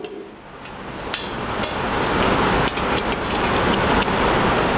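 Small metal screws and hardware clicking and clinking as they are handled, over a steady background hiss that swells up in the first couple of seconds.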